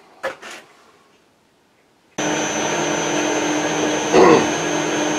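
Metal lathe running with a steady hum and a thin high whine, starting abruptly about two seconds in after near quiet. A brief louder sound rises over it about four seconds in.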